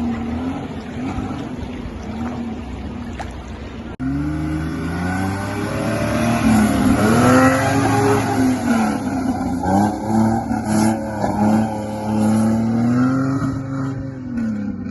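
Toyota Land Cruiser 80 Series engine revving up and down repeatedly under load, louder from about four seconds in.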